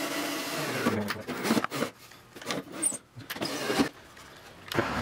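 Cordless drill driving wood screws into the gantry's wooden ribs. It runs for about a second, then clicks and knocks of handling the screws follow, and the drill starts again near the end.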